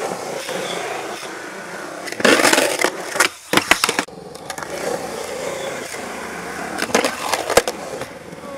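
Skateboard wheels rolling on concrete, with a loud rough burst about two seconds in and several sharp board clacks a little after it and again around seven seconds.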